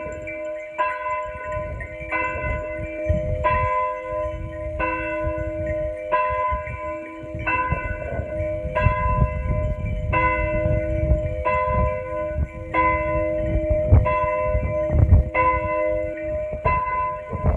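Church bell tolling at a steady, even pace, about one stroke every 1.3 seconds, each stroke ringing on under the next. A low, uneven rumble runs underneath.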